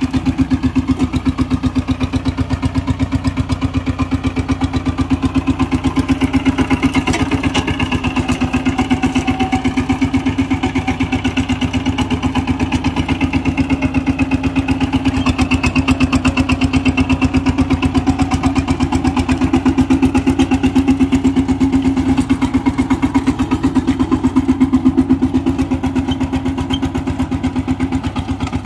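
VST Shakti 130 DI power tiller's single-cylinder diesel engine running steadily, with a rapid, even beat of firing pulses.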